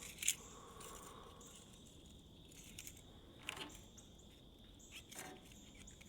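Quiet bench work on a small-engine carburetor: a few faint clicks and taps from the carburetor parts being handled while a fine wire is run through the jet, the first click the loudest, over a faint steady hiss.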